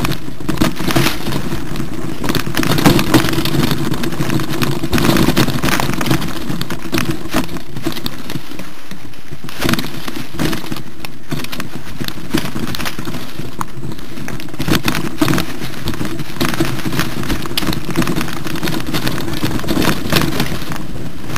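Mountain bike going down a rocky trail: tyres crunching over loose stones and the bike clattering and rattling over rocks, in many irregular sharp knocks, over a steady low rumble of wind on the microphone.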